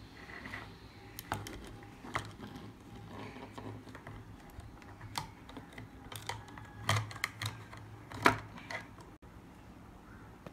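Plastic toys clicking and knocking on a wooden table: a toy excavator's arm and plastic interlocking blocks being handled, in scattered irregular taps, with the loudest knock late on.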